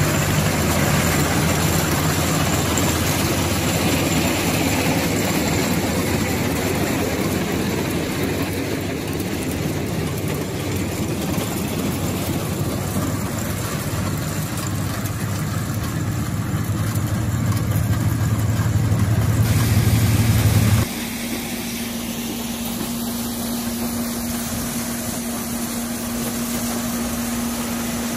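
Vintage tractor engine running steadily under load while it pulls and drives a one-row corn picker through standing corn, the picker's machinery running with it. About two-thirds through the sound changes abruptly to a quieter steady machine hum with one steady tone.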